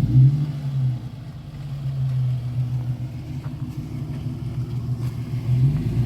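Off-road vehicle engine running at low revs, as when crawling a trail, with a short rise in revs near the end.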